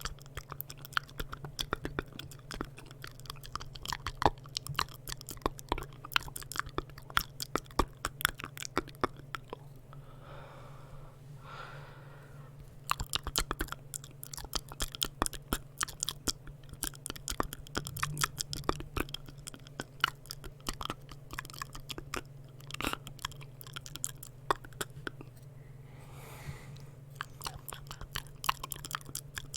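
Close-miked wet mouth sounds for ASMR: rapid, dense tongue clicks and lip smacks, which thin out twice for a moment, with a soft breathy sound in the gaps.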